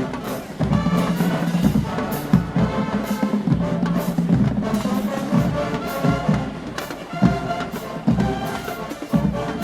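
HBCU marching band playing its field show: brass holding low, sustained chords over marching drum hits.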